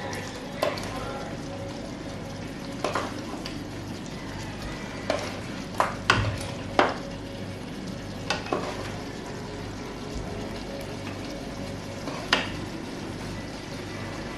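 Food frying and sizzling in a pot while a spoon stirs it, knocking against the pot several times.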